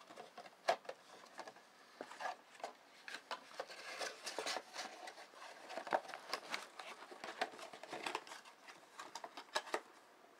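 Cardboard lens box and its paper insert being handled and pulled apart: an irregular run of light taps, clicks and rustles.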